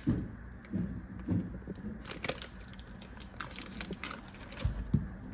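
Scattered light clicks and knocks of a pot and utensils being handled as butter is set to melt, with a louder low thump about four and a half seconds in and another near the end.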